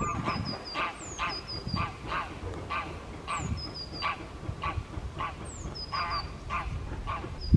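Greylag goose honking over and over, about two calls a second. A small songbird sings a short high phrase, a downward whistle then three quick notes, about every two seconds.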